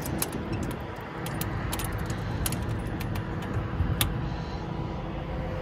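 Light metallic clicks and rattles of a truck-bed compartment latch being worked by hand, stopping after about four seconds. Underneath, the truck's 6.7 Cummins diesel runs steadily.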